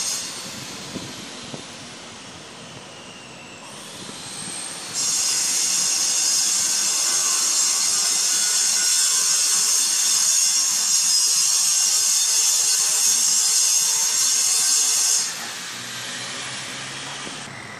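A construction power tool running with a steady, high-pitched hiss. It starts abruptly about five seconds in and cuts off abruptly about fifteen seconds in, over a fainter steady hiss.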